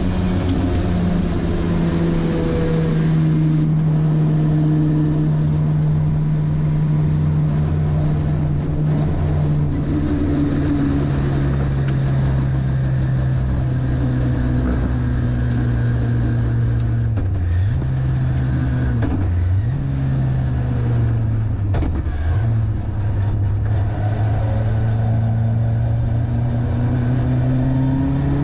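Onboard sound of a racing Toyota Starlet's Vauxhall 2.3-litre XE four-cylinder on individual throttle bodies, running steadily at high revs, its note slowly falling in pitch as the car slows. In the second half the note dips briefly three times, with wind and road noise over the top.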